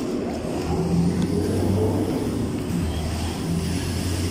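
Street traffic: the engines of motor vehicles running close by, a low hum that swells and fades, over steady road noise.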